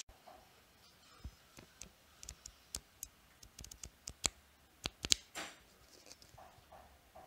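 Pages of a small paper flip book flicking off a thumb: a run of sharp, irregular clicks with a brief papery rustle near the end.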